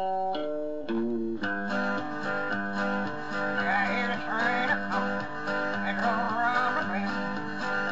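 Country music playing: a guitar-led instrumental passage with strummed and plucked guitar. A fuller band texture comes in about a second and a half in.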